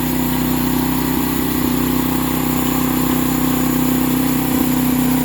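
Sawmill engine running steadily with an even hum and no change in speed.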